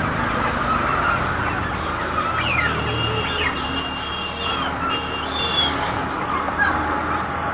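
A mix of caged poultry and other birds calling: clucking and short chirps from chickens, turkeys and smaller birds overlapping, over a steady low hum.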